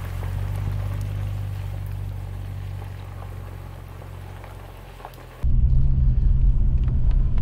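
A Subaru Outback's engine running as the car drives away up a wet gravel track, a steady low hum over a hiss that fades as it recedes. About five and a half seconds in, the sound cuts abruptly to the much louder, steady low rumble of engine and road noise heard inside the car's cabin.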